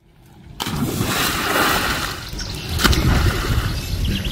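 Swimming-pool water splashing as a person jumps in, with a sharp splash about half a second in, another near three seconds, and churning, sloshing water between them.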